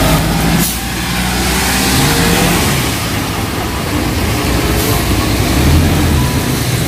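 Light cargo truck driving past close by, its engine running steadily, with tyres hissing on the wet road.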